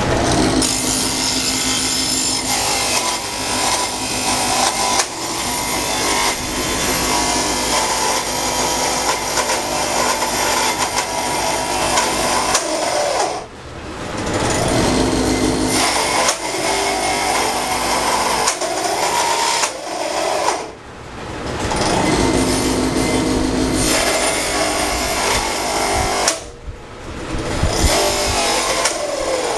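Power tool, most likely a belt-driven drill press, running and cutting into a block of 2x4 wood. The noise is steady and drops away briefly three times as the cut pauses.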